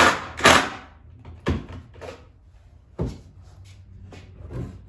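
Wooden knocks and clunks of lumber and tools being handled on a workbench while a door frame is put together. Two sharp knocks come in the first half second, then single knocks about a second and a half and three seconds in, with lighter taps between.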